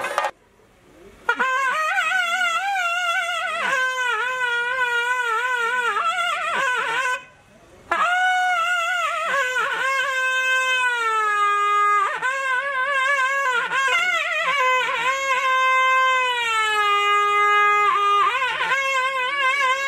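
A kuzhal, the double-reed wind instrument of theyyam, plays a wavering, ornamented melody of long held notes that step and glide downward, with one short break midway. The drumming stops just before it begins.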